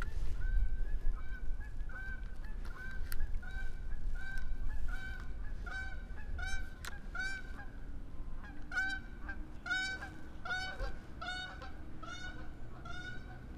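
Geese honking continually, about two honks a second, with a low rumble underneath in the first half.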